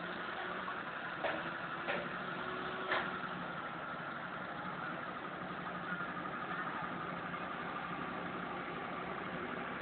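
Vehicle engine idling steadily, with three short clicks or knocks in the first few seconds.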